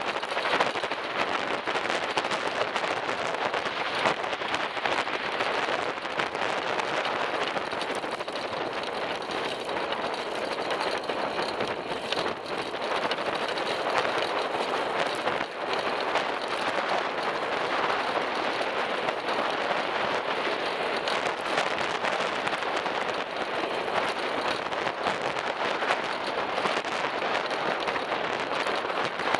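Steady road noise of a bicycle riding along a cycle lane, picked up by a camera mounted on the bike: tyre noise with a constant crackle of small rattles, and motor traffic on the road alongside.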